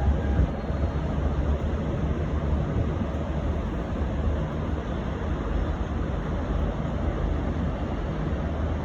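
V/Line A-class diesel-electric locomotive running with a steady low rumble.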